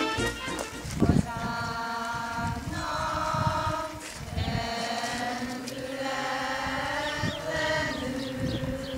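A choir singing a slow song in long held notes that move from pitch to pitch, with a brief break between phrases about four seconds in.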